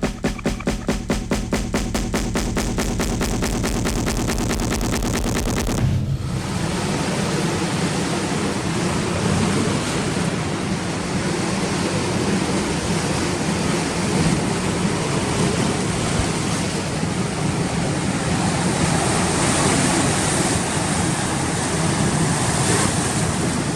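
Background music with a fast, steady beat, cut off suddenly about six seconds in by the steady noise of a rough sea's surf.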